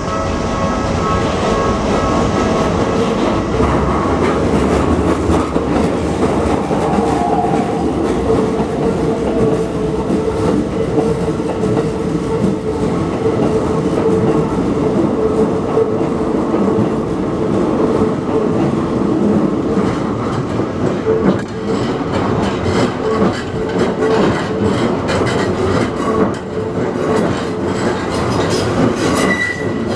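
Electric commuter trains running through a level crossing, with a steady motor and running noise and the wheels clattering over the rail joints. Near the end a high-pitched wheel squeal starts.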